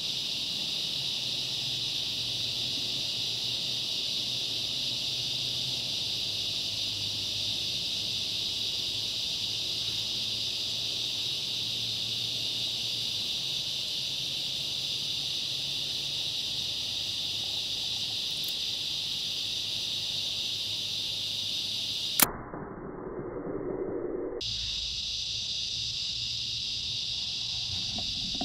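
Steady chorus of crickets and other insects, broken about three-quarters of the way through by one sharp crack: the shot of a Mathews V3 31 compound bow. It is followed by about two seconds of muffled low noise.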